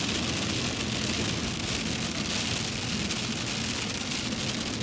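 Steady rain pattering on a pickup truck's windshield, heard from inside the cab.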